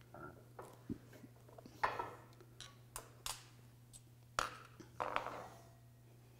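Scattered metal clicks and clinks from hand tools and a small band clamp being handled while the clamp is fitted around the drive-shaft joint's rubber boot, with a steady low hum underneath. The loudest clinks come about two seconds in and again just past four seconds.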